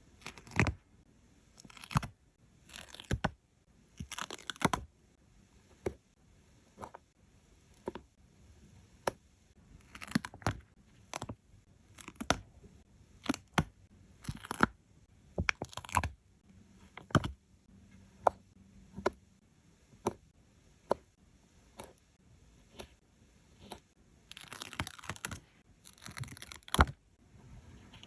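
Paper stickers being peeled from their backing sheet and pressed down by hand: an irregular string of short taps and clicks, about one a second, with several longer crinkly peeling and rubbing sounds, the longest near the end.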